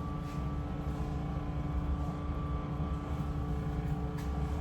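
Steady low mechanical hum with several steady tones held throughout, and a couple of faint light taps.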